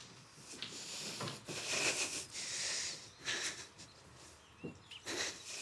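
Quiet sounds of a person moving: a run of soft rustles and shuffles, a pause about three and a half seconds in, then a few more short ones near the end.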